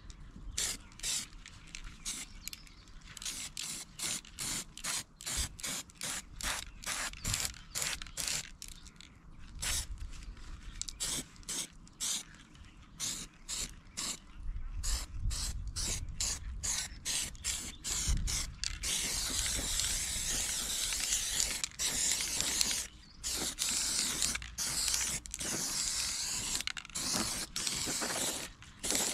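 Aerosol spray-paint can being shaken, its mixing ball rattling in quick clicks. About 19 seconds in it gives way to a steady hiss of black paint being sprayed in bursts with short pauses.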